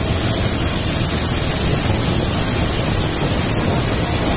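Steady wind rush on the microphone together with the low running noise of a VW tour car on the move.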